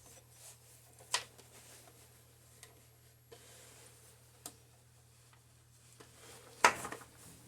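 Scattered sharp clicks and a louder short clatter near the end, over a faint low hum: small knocks of tools and parts being handled while the cordless impact wrench is set up on the flywheel nut. The impact wrench is not hammering here.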